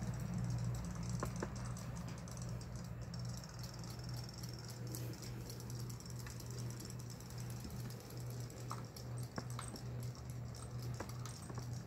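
Battery-powered robotic fish toys swimming in a shallow plastic bowl of water: a steady low motor hum with fast, fine ticking, and a few sharper clicks scattered through.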